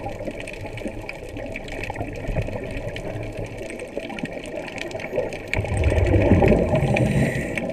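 Scuba divers' regulator exhaust bubbling underwater, heard through an action camera's waterproof housing. A louder stretch of bubbling comes a little past halfway and lasts about two seconds.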